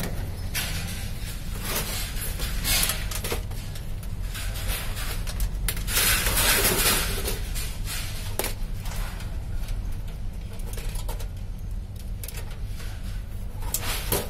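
Steel PC tower case being handled: its side panel slid off and set down and the case shifted and turned, giving scattered metallic clunks and scrapes, with a longer, louder scraping rustle about six seconds in.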